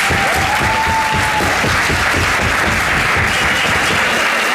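Crowd of spectators applauding and clapping steadily.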